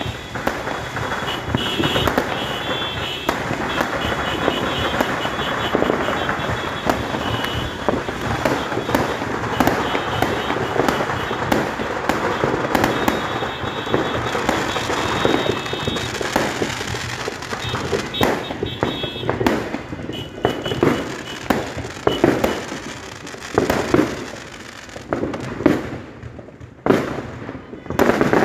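Fireworks going off: a dense, unbroken crackle of pops and bangs for most of the time, thinning in the last ten seconds or so to separate sharp bangs with short gaps between them.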